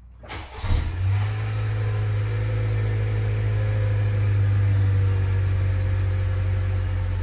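A 2020 Honda Accord on its stock exhaust cold-starting about a second in: the engine catches and settles straight into a steady idle.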